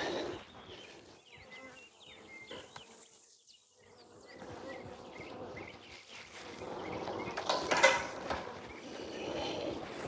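Honey bees of a swarm buzzing faintly as they fly around the disturbed cluster. A brief rustling handling noise about eight seconds in is the loudest moment.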